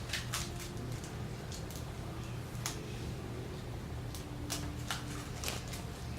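Star glitter being shaken out into a slime cup: light, irregular clicks and rustles of the small pieces and packet, over a steady low hum.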